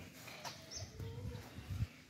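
Faint outdoor background with a brief high bird chirp about half a second in, over a low irregular rumble.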